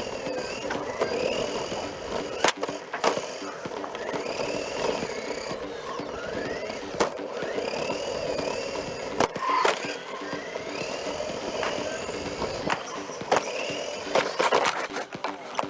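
Onboard sound of an electric RC car racing on carpet: the motor's whine rising and falling in pitch with the throttle over a steady rolling rumble of tyres and chassis, with sharp knocks several times.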